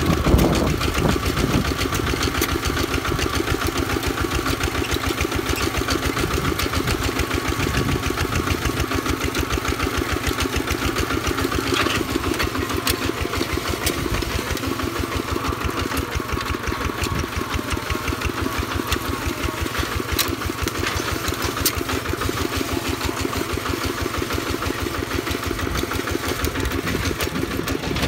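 Two-wheel walking tractor's single-cylinder engine running steadily as it pulls a plough through the soil, with a few faint clicks from the plough frame.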